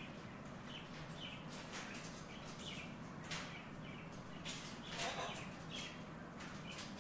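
Quiet, short bird chirps repeating irregularly, mixed with small sharp clicks.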